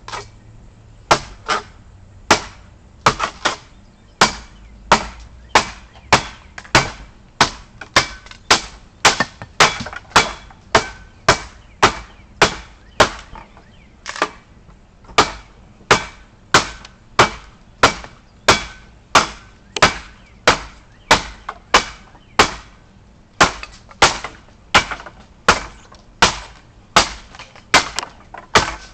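Cold Steel Special Forces shovel chopping into wood, a steady run of sharp blade strikes at about one and a half a second.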